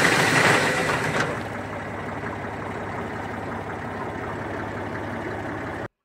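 Tractor-driven AGM WC X5G wood chipper running, loud at first, then settling to a lower, steady running sound about a second in. It cuts off abruptly just before the end.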